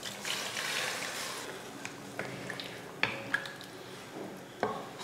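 Water poured from a rinsed mixer-grinder jar into a kadai of sautéed vegetables and masala: a splashing trickle that fades after about a second and a half, followed by a few light clinks.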